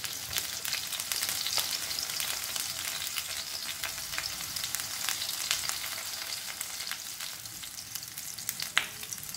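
Oil sizzling and crackling in a nonstick frying pan, with beaten egg filling spooned into tomato rings frying in it. There is one sharper click near the end.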